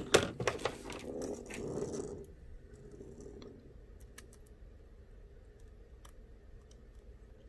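Small clicks and rustling of smartphone parts and tools being handled during a repair, busiest in the first two seconds, then a few faint scattered ticks.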